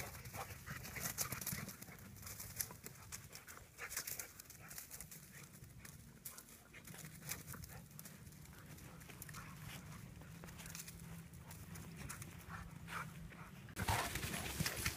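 Faint sound of dogs running and playing on grass: scattered light patters and rustles, getting louder near the end.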